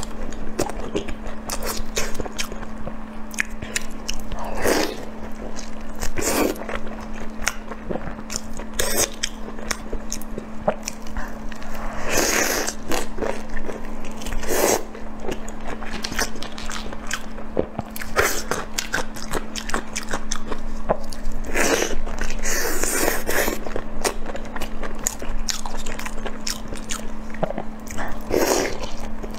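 Close-miked eating: a person biting and chewing, with many small mouth clicks and louder bursts of chewing noise every few seconds. A steady low hum runs underneath.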